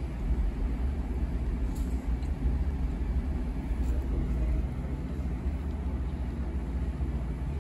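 Steady low vehicle rumble, with a couple of faint light clicks.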